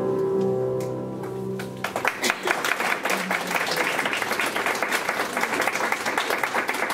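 Girls' choir holding the final chord of a song, which ends about two seconds in; then the audience claps.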